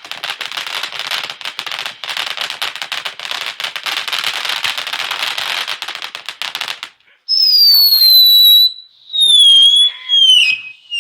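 Consumer ground firework going off: a dense crackle of rapid small pops for about seven seconds that stops abruptly. It is followed by a string of loud whistles, each falling in pitch.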